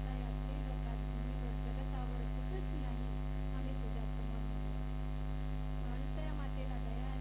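Steady electrical mains hum through the sound system, made of several low fixed tones, with a faint voice wavering underneath.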